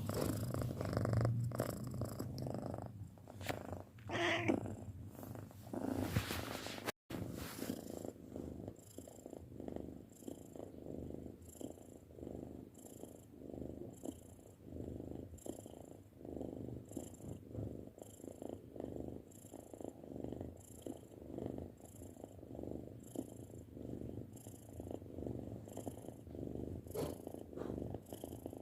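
Six-month-old domestic cat purring, the purr swelling and fading in a regular rhythm with each breath. The sound drops out briefly about seven seconds in.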